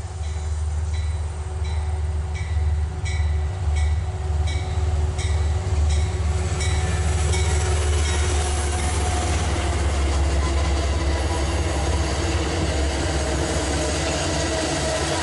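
Amtrak P32AC-DM locomotive No. 701 and its passenger coaches passing at speed. First comes a regular series of sharp wheel clicks over rail joints, then about eight seconds in the steady rushing rumble of the coaches rolling by.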